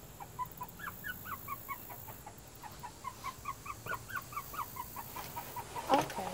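A bird calling nearby in a rapid run of short, rising chirps, several a second, with a louder crackle near the end as the panels of a photo tent are handled.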